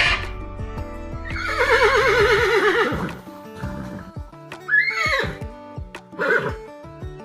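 A horse whinnying: one long, quavering neigh that falls in pitch, then two shorter calls, over background music.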